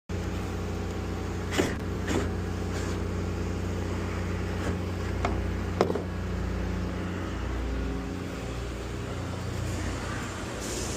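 Machinery running with a steady low hum, with a handful of sharp clanks in the first six seconds.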